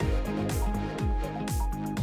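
Background music with a steady electronic beat: deep bass thumps that drop in pitch, repeating several times a second.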